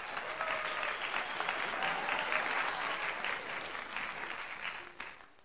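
Crowd applauding, a dense patter of many hands clapping that fades out over the last second.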